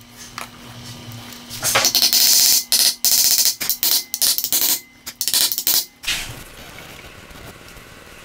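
A hand file rasping back and forth across a small metal plate on a Teletype housing, in several strokes, some long, some short. The strokes start a little under two seconds in and stop about six seconds in.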